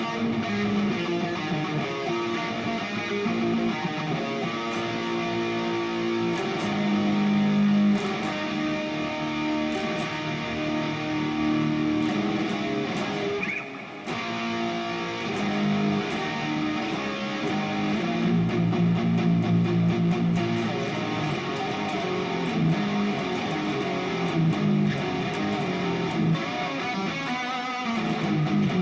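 Harley Benton SC-500 single-cut electric guitar played through the Overloud TH3 amp simulator on a big-stack amp tone, running chords and riffs from a late-80s/early-90s song, with a brief break about halfway.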